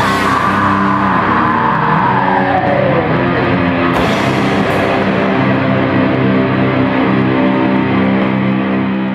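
Live punk band's distorted electric guitars and bass holding one chord and letting it ring, with a high note sliding down in pitch over the first three seconds and a cymbal crash about four seconds in.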